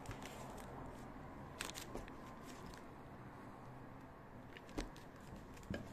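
Pisang bolen pastries being cut and handled on a kitchen counter: a few light, sharp taps and crisp crunches.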